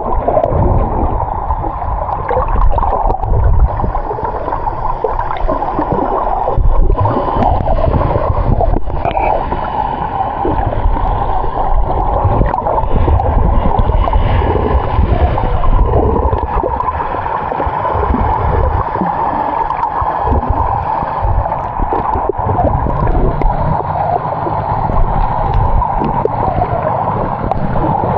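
Muffled water sloshing and gurgling over a steady low rumble, continuous and fairly loud.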